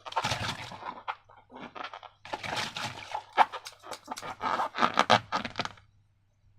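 Slime being made from the contents of balloons: irregular bursts of handling noise. The loudest come about three and a half and five seconds in, and the noise stops shortly before the end.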